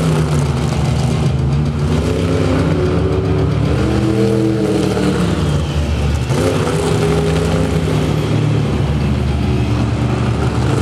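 Monster truck engine running loud, revving up and down as the truck drives and turns.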